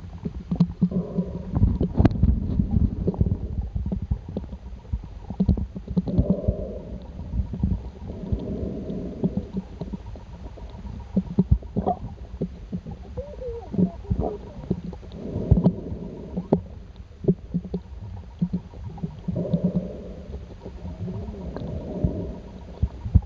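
Muffled underwater noise: irregular low rumbling and gurgling water, with scattered knocks.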